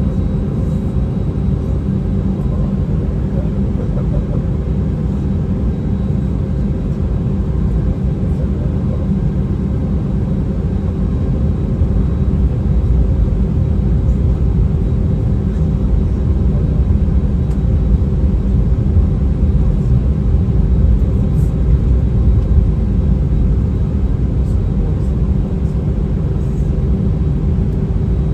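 Steady rumble of an Airbus A319's jet engines and airflow heard from inside the cabin, with a steady hum over it, growing a little louder about halfway through.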